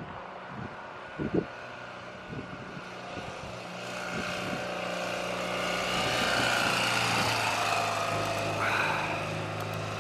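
2017 Ural Gear Up sidecar motorcycle's boxer-twin engine running as the bike rides past, a steady low hum that grows louder from about four seconds in and peaks around six seconds. A couple of dull thumps sound in the first two seconds.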